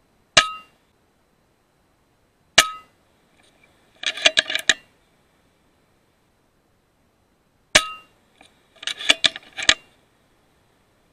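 FX Impact M3 .22 PCP air rifle firing three times, each shot a sharp crack with a short metallic ring. After the second and third shots comes a quick run of clicks as the side-lever action is cycled to chamber the next slug.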